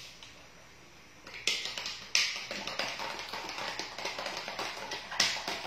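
Light, irregular taps and clicks, several a second, from things being handled on a kitchen counter. They start after about a second of quiet, with louder knocks a second and a half in, two seconds in, and near the end.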